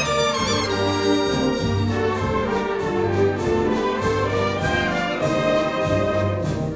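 Symphonic wind band playing a pasodoble, brass to the fore over a steady march beat.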